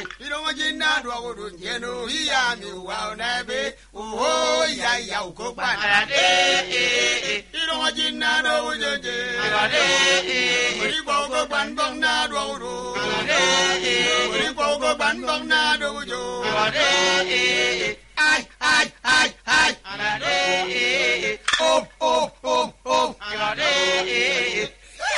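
Men singing an Annang traditional chant-like song, voices wavering and sustained, with a run of short, clipped syllables about three-quarters of the way through.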